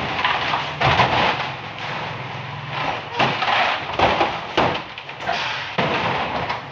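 Empty plastic water jerry cans being stacked into a truck's cargo box: a run of knocks and thuds, several over a few seconds, as the containers bump against each other and the stack.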